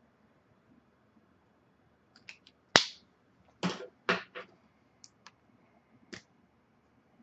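A short run of sharp clicks and knocks, like a pen and drawing tools being handled and set down on a desk, the loudest about three seconds in.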